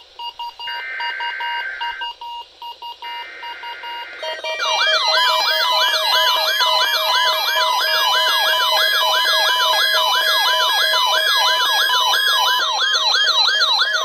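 NOAA weather alert radios receiving a Required Weekly Test: a short buzzing SAME data burst and a few short tones, then from about four seconds in several receivers sound their alert alarms at once, overlapping warbling, sweeping siren tones repeating about twice a second.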